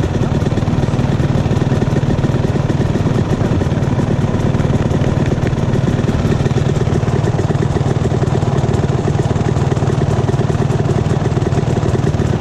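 Dirt bike engines running steadily at low speed, close to the microphone, with no clear revving.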